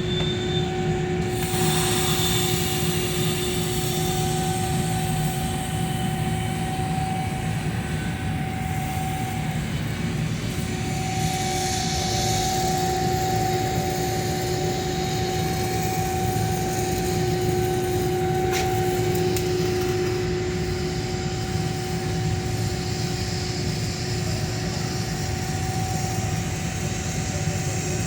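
Steady drone of running machinery with a constant two-tone hum over a rumbling low end, unbroken throughout.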